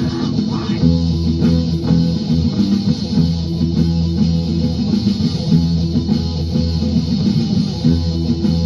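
Hardcore punk band playing a riff on electric guitar and bass guitar, from a 1993 demo tape recording.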